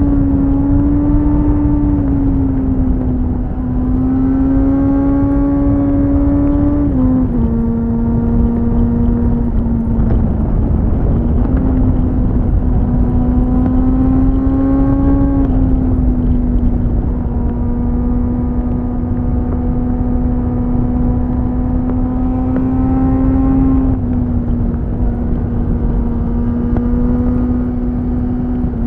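2001 Suzuki GSF 600 Bandit's inline-four engine through a BOS slip-on exhaust, running under load. Its note climbs slowly and steps down sharply a few times, the way engine speed falls at an upshift, over a heavy rush of wind on the onboard microphone.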